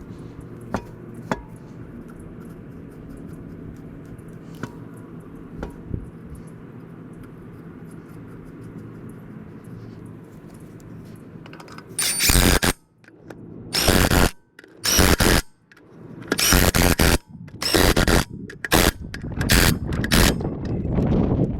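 A low steady hum, then from about halfway a series of loud short bursts, each under a second, from a compressed-air tool at work on the plugged tire or its wheel.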